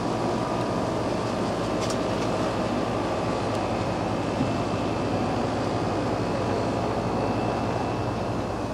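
Steady hiss with a low hum from running machinery, even in level throughout.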